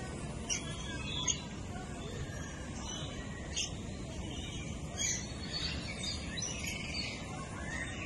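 Aviary birds chirping: short, high calls come every second or so, over a steady low background noise.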